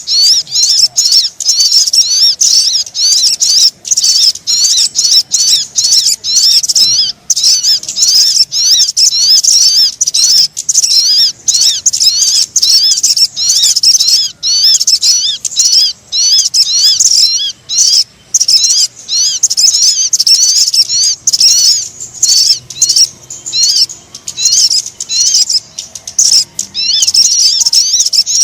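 Lure-call recording of a sogon: rapid, high-pitched twittering chirps repeated almost without pause, broken by a few short gaps, used to draw wild birds down for trapping.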